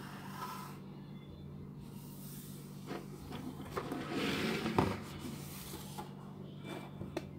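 Cardboard toy box being picked up and handled, its surfaces rubbing and rustling, with a sharp knock about five seconds in and a couple of small clicks near the end. A steady low hum runs underneath.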